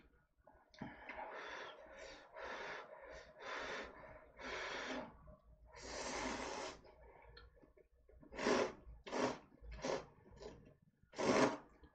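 Instant cup-ramen noodles slurped from the cup, a run of separate slurps. The later slurps, from about two-thirds of the way in, are shorter, louder and come quicker.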